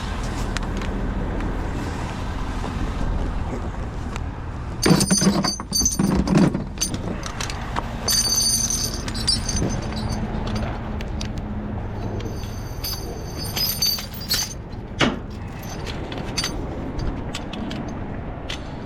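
Metal tie-down hardware (strap hooks and ratchets) clinking, clicking and jangling in scattered bursts while a vehicle is strapped down on a trailer, over a steady low rumble.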